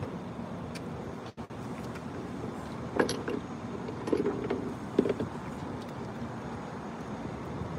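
Steady outdoor background noise, with a few faint short sounds around the middle.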